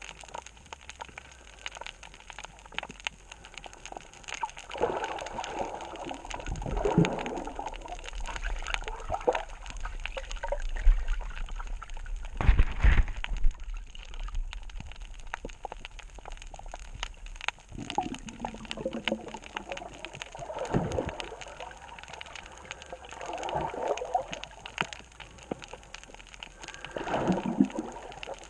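Underwater sound on a shallow reef: a constant fine crackling, with short bubbling, gurgling swells every few seconds, the strongest about halfway through.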